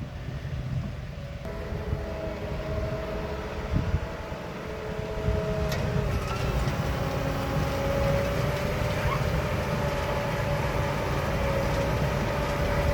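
Tractor-drawn Grimme Variation 270 potato harvester at work: a steady engine rumble with a steady machinery whine that sets in about a second and a half in, growing a little louder midway.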